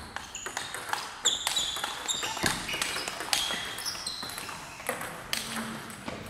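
Table tennis rally: the ball clicking sharply off paddles and the table, many irregular clicks, each with a brief high ping.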